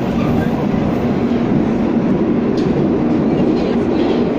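Moscow Metro train running, heard from inside the carriage: a loud, steady rumble of wheels on rails with a steady low hum.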